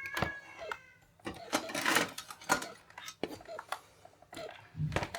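Clicks, knocks and a brief scrape of plastic and metal computer parts being handled inside an opened desktop PC case, as the part covering the RAM is moved aside.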